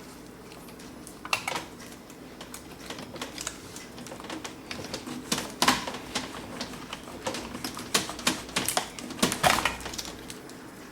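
Irregular clicks and knocks of hand tools and metal and plastic parts being handled while an old timer is unbolted and removed from a GE dishwasher's control panel, the knocks coming thicker and louder in the second half.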